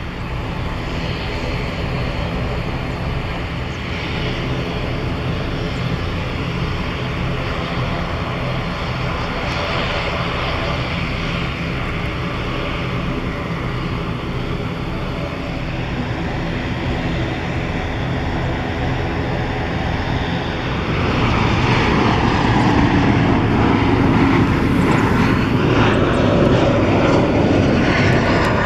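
Jet airliner engines running steadily, a hum with a held whine. About 21 seconds in it gives way to a louder jet roar with a swishing, sweeping pitch as a jet passes close by on approach.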